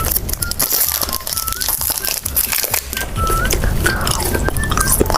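Background music over crinkling and crunching of candy packaging and candy, a run of sharp crackles throughout.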